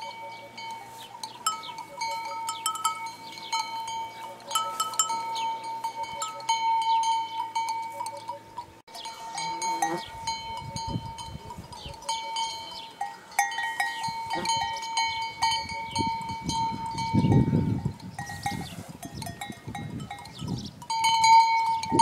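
Bells on grazing livestock clanking and ringing irregularly, with many overlapping clinks.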